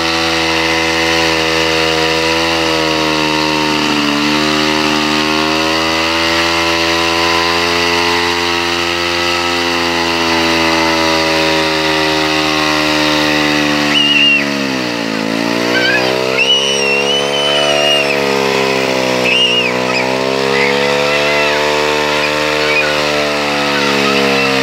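Vintage two-man chainsaw running under load as it cuts through a log. Its engine pitch sags a little about four seconds in, then drops sharply as it bogs in the cut about fifteen seconds in and climbs back. A few short high squeaks sound over it in the second half.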